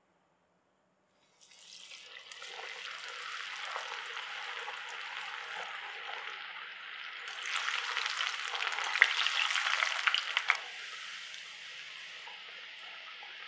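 Flour-coated potato wedges deep-frying in hot oil in a pan. The sizzle starts suddenly about a second in, grows louder with sharp crackles for about three seconds in the middle, then settles into a steadier, quieter sizzle.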